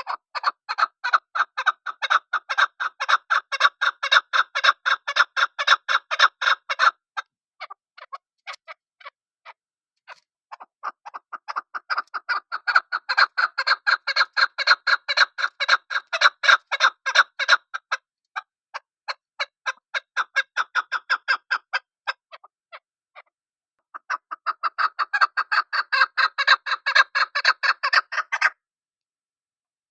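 Chukar partridge calling: fast runs of short repeated chuk notes, several a second, in three long bouts with slower scattered notes between them, stopping shortly before the end.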